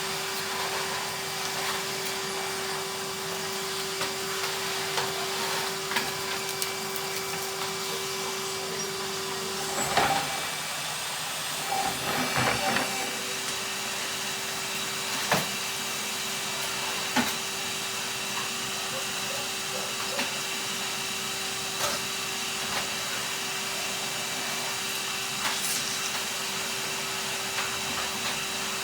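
Numatic Henry cylinder vacuum cleaner running with a steady hum and hiss of suction, the hum breaking off briefly a third of the way through. A few sharp knocks come from the tool working against surfaces.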